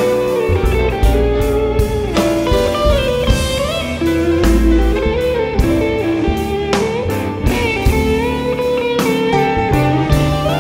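Slow blues played live: a Telecaster-style electric guitar takes an instrumental solo with bent notes, over upright bass and drums.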